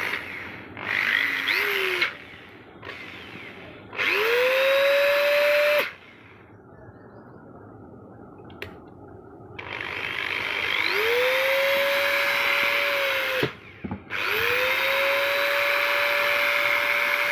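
Dongcheng DPL8 corded electric screwdriver run with no load in trigger pulls, four times. Each time the motor spins up with a rising whine, holds a steady pitch for a few seconds and stops; the first pull is short and lower.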